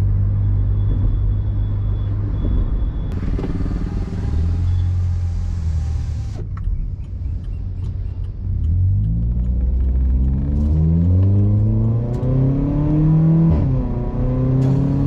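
Stage-2-tuned VW Polo GT TSI's 1.2 TSI turbocharged petrol engine, running through a full-system exhaust with a Remus valvetronic muffler. It holds a steady note for about six seconds, eases off, then climbs in revs twice under acceleration, with a brief drop between the two pulls near the end.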